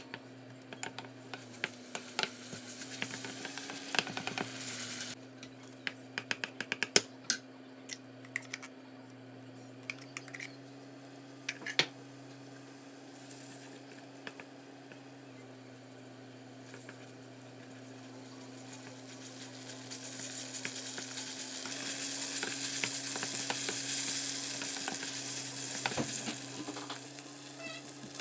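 Minced meat frying and sizzling in a frying pan while a wooden spatula stirs it, with many sharp clicks and scrapes of the spatula against the pan over roughly the first half. The sizzle swells louder in the last third, after tomato paste has gone into the pan.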